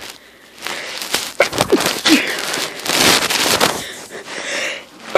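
Repeated sneezing set off by sniffing a flower: short pitched catches of breath, then a loud, noisy sneeze burst about three seconds in, trailing into a fainter breathy hiss.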